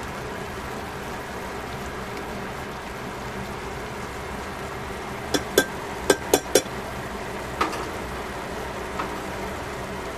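Chopsticks tapping against a stainless-steel pan of pork and vegetable stir-fry: five quick ringing clicks a little past the middle, then two lighter single taps, over a steady hum and hiss.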